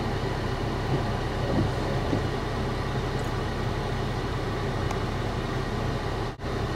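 Steady low roar of fast floodwater pouring over a road and washing it away, broken off for a moment near the end.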